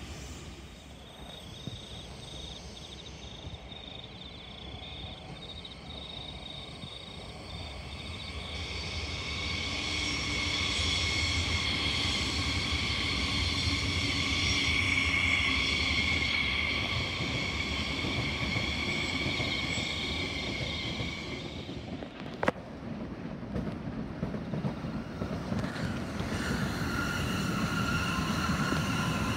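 Double-deck electric suburban trains running past on the tracks: a low rumble with a high, steady whine that builds from about eight seconds in and stops just after twenty seconds. A single sharp click comes soon after, then another high whine near the end as a further train comes by.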